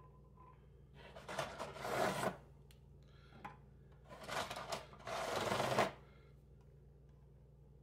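Dry oven-ready lasagna noodles being handled and laid into a baking dish, making two bursts of stiff rustling and scraping, the second longer, about four seconds in.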